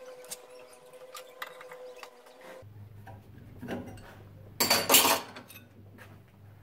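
Small 1/8-inch mild-steel spinner targets clinking against each other and the steel workbench as they are handled: a few light clicks, then a louder metal clatter about two-thirds of the way through.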